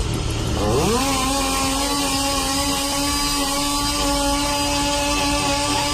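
Chainsaw revving up sharply just under a second in, then held at a steady high throttle.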